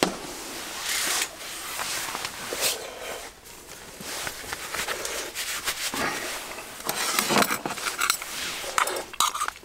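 Irregular rustling of a padded jacket with clinks and scrapes of aluminium mess tins and utensils being handled, a few sharp clicks among them.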